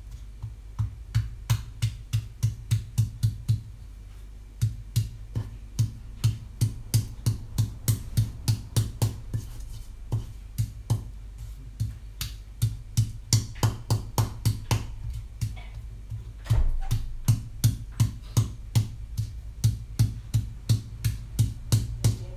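Rhythmic heavy thumps, about three a second, breaking off briefly a few times.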